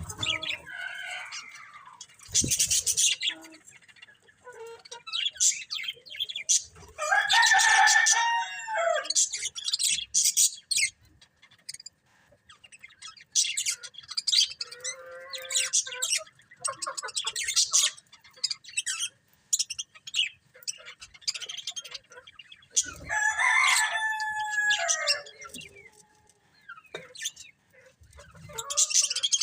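Budgerigars chirping and chattering in quick, high, irregular calls. Two longer, louder calls with a falling end stand out, about a quarter of the way in and again about four fifths of the way in.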